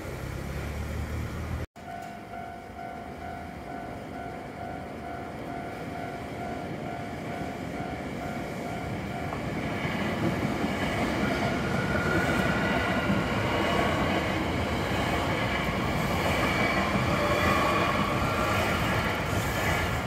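A Japanese level-crossing warning bell rings with a steady repeating ding for several seconds and stops about halfway through. A Hankyu electric train then passes over the crossing, its wheels running on the rails and the noise growing louder toward the end.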